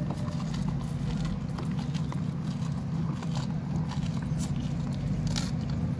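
A Hereford bull biting and chewing chopped green stalks at a feed trough: scattered crisp crunches over a steady low rumble.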